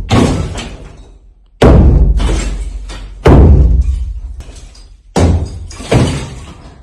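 Five heavy crashing impacts in a row, each one sudden and dying away slowly over a second or more.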